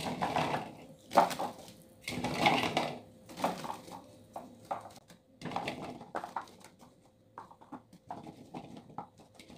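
Peeled garlic cloves tumbling onto a paper towel in a plastic food container and being spread around by hand: irregular soft knocks and clicks with a dry rustle, busiest in the first few seconds and sparser later.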